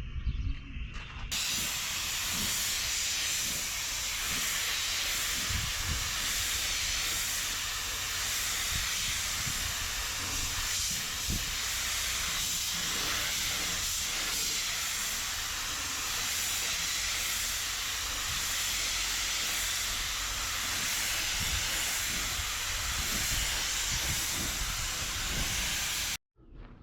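Steady, loud hiss of compressed air from a workshop air tool, starting abruptly about a second in and cutting off suddenly near the end.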